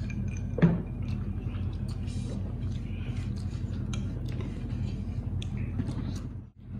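Eating sounds of instant noodles being picked off hard plates by hand and fork and chewed: small scattered clicks and smacks over a steady low hum, with one sharp knock about half a second in. The sound cuts out briefly near the end.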